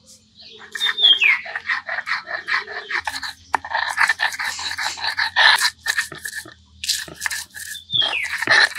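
Stone roller worked back and forth on a grooved stone grinding slab, crushing garlic cloves: quick repeated scraping, crunching strokes, starting about a second in. A short falling whistle-like call sounds twice, near the start and near the end.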